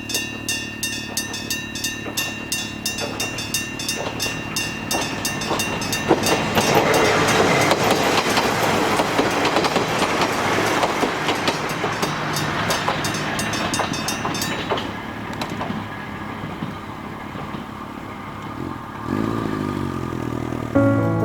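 Level crossing's electric bell ringing rapidly and steadily while a train rumbles past over the crossing. The bell stops about fifteen seconds in, leaving a low rumble as the train moves off.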